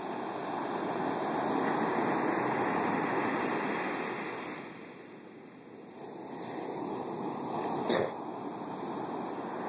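Big storm-surge waves breaking and washing up a sandy beach: a steady rush of surf that swells, fades about five seconds in, then builds again with the next wave. A short click near the end.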